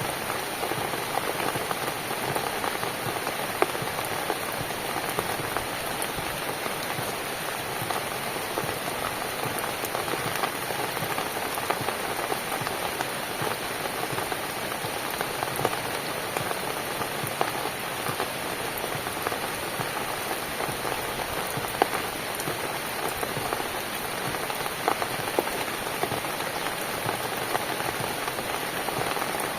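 Steady rain falling on a cabin, a continuous patter with occasional sharper individual drop hits.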